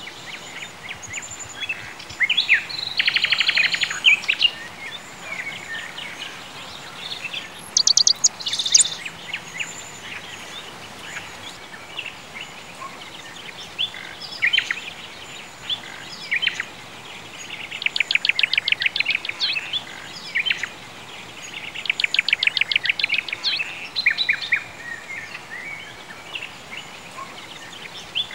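Birds chirping and singing, with rapid trills that recur every few seconds, over a steady faint background hiss.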